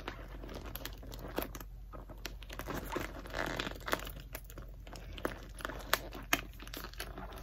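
Crinkling of a clear plastic handbag and the crumpled packing inside it as hands work its gold metal twist-lock clasp, with many small sharp clicks and a longer crackle about halfway through.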